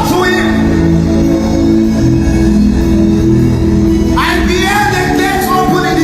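Worship music with long held chords and a voice singing over it, one sung line rising in pitch about four seconds in.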